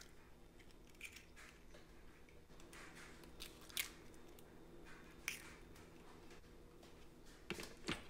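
Faint, scattered crackles and snaps of eggshells being cracked and pulled apart over a glass blender jug. A couple of sharper clicks near the end as the plastic blender lid is fitted onto the jug.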